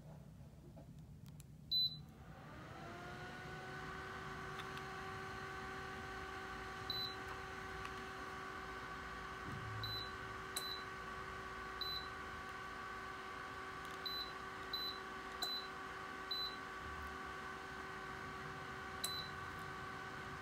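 BLACK+DECKER BHT907R desktop heater: a loud beep about two seconds in, then its fan spins up and runs with a steady hum. Its control panel gives short beeps, about nine over the rest, as remote buttons are pressed to change the set temperature.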